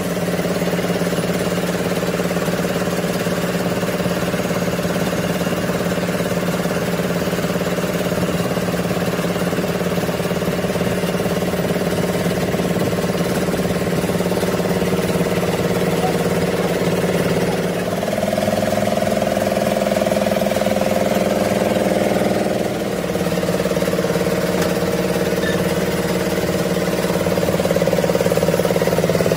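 Metal lathe running with a gearbox main shaft turning in its chuck: a steady machine hum that dips and shifts in tone about eighteen seconds in and again about twenty-three seconds in.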